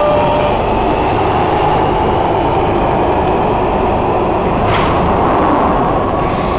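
London Underground 1996 Stock Jubilee Line train coming to a stand at the platform. The falling whine of its motors dies away in the first half second, leaving a steady rumble, and a sharp click about five seconds in as the train and platform screen doors open.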